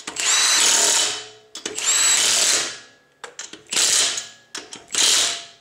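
Milwaukee M18 Fuel cordless impact wrench tightening a car wheel's lug nuts in turn. It runs in four short bursts, each winding down at the end, with small clicks in the gaps between bursts.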